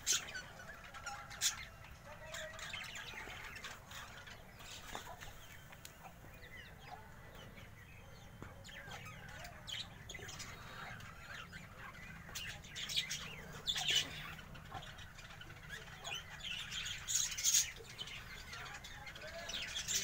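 A flock of budgerigars chirping and chattering, many short high chirps overlapping, with louder bursts of chirping about two-thirds of the way through and again near the end.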